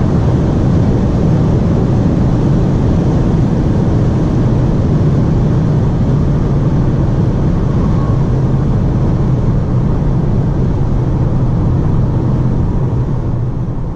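Inside the cabin of a SEAT Leon slowing down from about 240 km/h on a motorway: steady wind and tyre roar over a low drone that sinks slightly in pitch as the speed falls.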